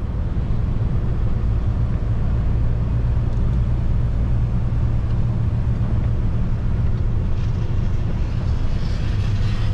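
Loaded crane truck driving, heard from inside the cab: its engine and road noise make a steady low drone.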